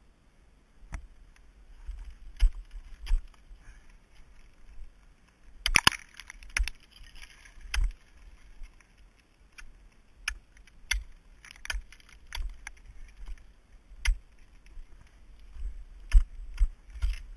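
Ice axe picks and crampon points striking and kicking into frozen waterfall ice: a series of sharp, irregular strikes about once a second, with a longer crunching, chipping flurry about six seconds in.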